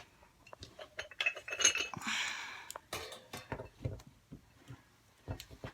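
Ceramic Scentsy wax warmer and its dish clinking as they are handled: a run of small knocks and clicks, with a brief ringing clink about a second and a half in and a short scrape around two seconds.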